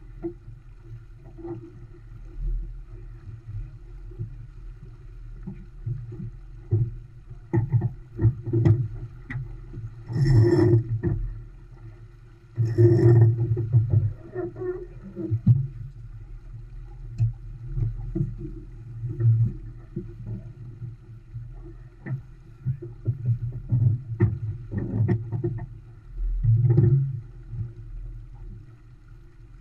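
Sailboat under way upwind: wind buffets the microphone in irregular gusts over the rush of water along the hull, with two louder rushes about ten and thirteen seconds in.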